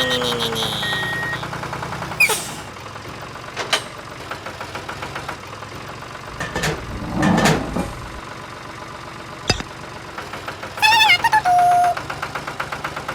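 Small engine running steadily with a fast pulsing beat. A few short knocks and squeaks sound over it, with a brief wavering squeal near the end.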